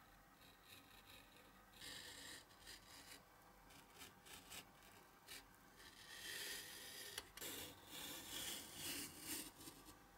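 Snap-off craft knife cutting printed paper box templates on a cutting mat: faint scratchy strokes of the blade in short runs, with a single sharp click about seven seconds in.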